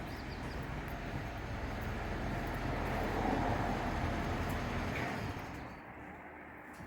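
Van running with engine and tyre noise, swelling briefly and then dying away near the end as it comes to a stop.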